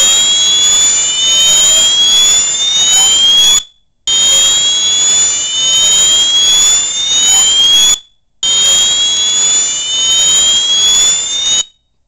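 Wheelock MT multitone fire alarm horn sounding its slow whoop tone: three long rising sweeps, each about three and a half seconds, with short breaks between them.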